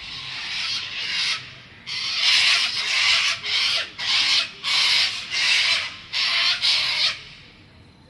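A series of harsh, rasping screeches from birds settling to roost for the night, coming about twice a second and loudest in the middle, then stopping about seven seconds in.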